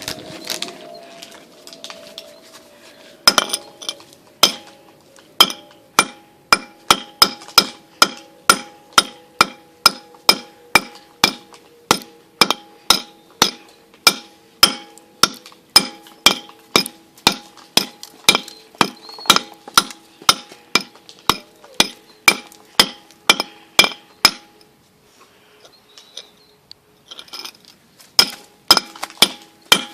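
Repeated sharp metallic knocks or clinks, about two a second, each leaving a short ringing tone. They start a few seconds in, stop for a few seconds near the end, then start again.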